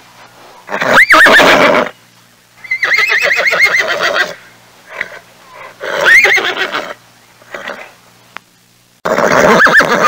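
Horse whinnying four times: short calls about a second in and about six seconds in, a longer quavering whinny around three seconds in, and another near the end.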